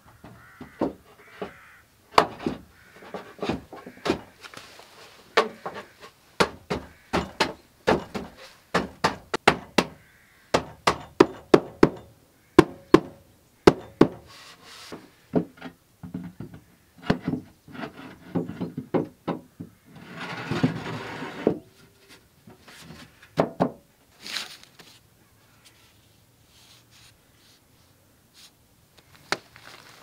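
Wooden boards of a TROBOLO KersaBœm toilet kit being slotted together and pushed into place by hand: a long run of irregular wooden knocks and clacks, with a short scraping rustle about twenty seconds in. It falls mostly quiet after about twenty-five seconds.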